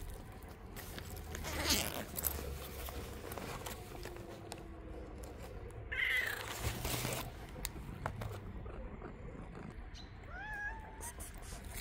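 A cat meowing: a short call that rises and then levels off, about ten seconds in, with a noisier sound about six seconds in. Scuffing and rustling noises around it.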